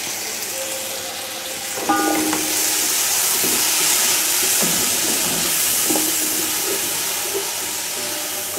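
Chopped tomatoes and onions frying in hot oil in a cooking pot, a steady sizzle that grows louder about two seconds in as they are stirred.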